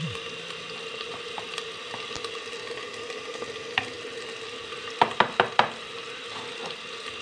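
Onion, tomato and ginger-garlic masala sizzling steadily as it fries in a clay handi while a steel spoon stirs it. About five seconds in, the spoon knocks sharply against the clay pot four times in quick succession.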